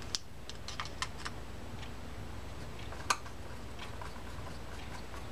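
A few faint, scattered small metal ticks as a screwdriver turns and seats the small screws in a Penn Slammer 260 spinning-reel spool's drag assembly; the clearest tick comes about three seconds in. A low steady hum runs underneath.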